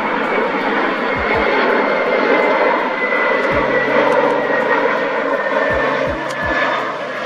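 Jet engines of an Airbus A321 airliner on final approach: a loud, steady rushing noise with a faint whine that slowly falls in pitch as the aircraft passes.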